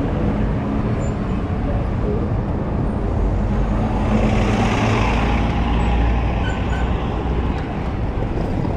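Road traffic: motor vehicles running, one passing loudest about four to five seconds in.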